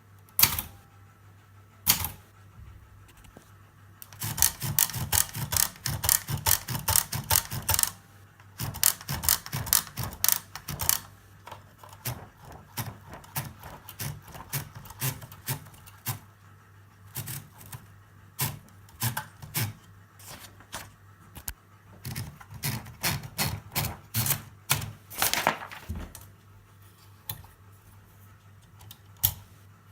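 Olympia Traveller C manual portable typewriter being typed on: quick runs of sharp keystroke clacks with short pauses between them. The longest runs come about four seconds in and again about twenty-two seconds in.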